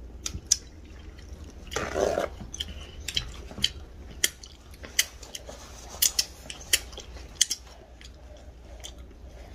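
Close-miked mukbang eating sounds: wet chewing and lip smacks with scattered sharp clicks, and a brief louder mouth sound about two seconds in.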